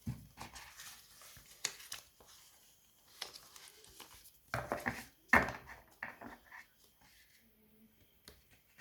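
Packaging and paper inserts from an iPhone 7 box being handled: irregular rustles and light taps, with a louder cluster of knocks about five seconds in.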